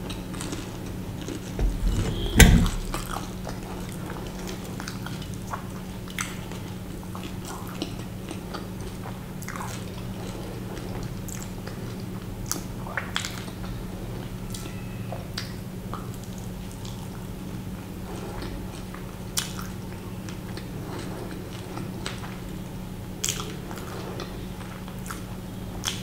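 Close-miked eating sounds: chewing and biting into samosa and chole bhature, with scattered wet mouth clicks over a steady low hum. The loudest event is a single thump about two and a half seconds in.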